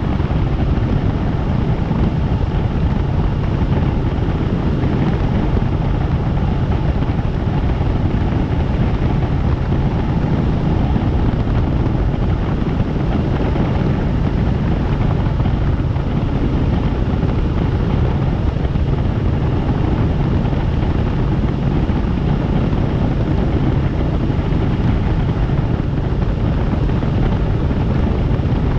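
Helicopter running steadily: a constant, even rotor and engine noise, heaviest in the low end, with no change in pitch or level.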